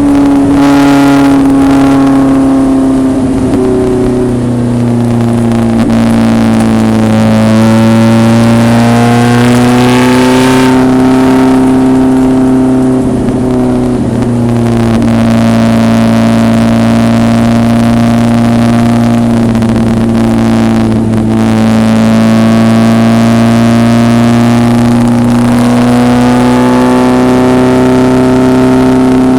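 Racing 1974 BMW 2002's four-cylinder engine pulling hard on track, loud and continuous. The revs sag, climb again, drop sharply as if on a shift, then hold fairly steady with a couple of brief dips.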